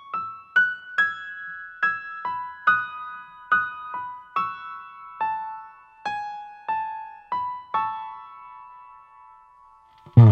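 Music: a solo electric-piano-like keyboard plays a slow, high melody of single ringing notes, about one to two a second, thinning out toward the end. A loud drum hit comes in right at the end.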